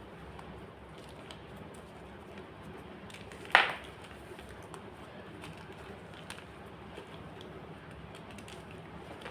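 A single sharp crunch of white gym chalk being crushed, about three and a half seconds in, with a few faint ticks and a low steady hum around it.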